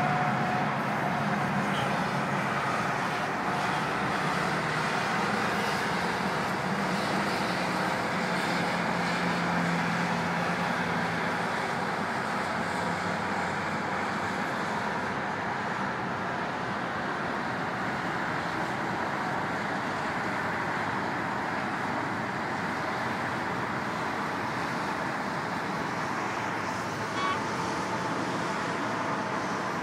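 Steady noise of dense highway traffic heard from high above: a continuous, blended wash of many vehicles' engines and tyres, with one short beep near the end.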